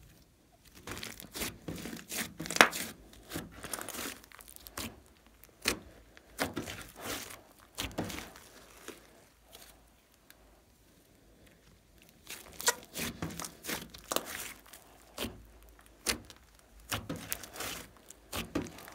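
Thick green slime crackling and popping with sticky tearing sounds as it is stretched, folded and pressed by hand. The crackles come in clusters, fall quiet for a few seconds around the middle, then start again.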